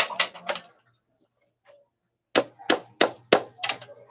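Hammer striking a nail through thin sheet metal resting on a wooden board, punching holes: three quick metallic strikes, a pause, then six more at about three a second.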